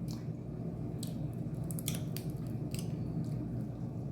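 Chewing with scattered wet mouth smacks and small clicks, a few each second, over a steady low hum.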